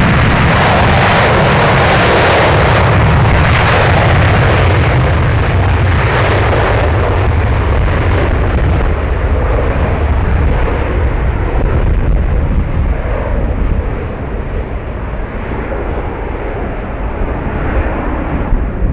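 Airbus A350's twin Rolls-Royce Trent XWB turbofans at takeoff power during the takeoff roll: a loud, steady jet roar with a deep rumble. From about halfway the high hiss fades as the airliner moves away down the runway, and it rotates near the end.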